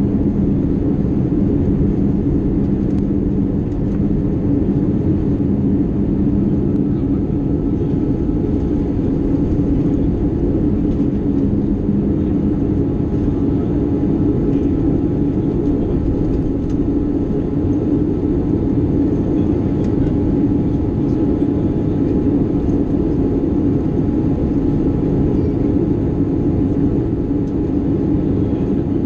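Steady in-flight cabin noise of an Airbus A320-232 with IAE V2500 engines: a low drone of engine and rushing airflow, with a few faint steady tones over it. A low hum in the drone fades out a little before halfway.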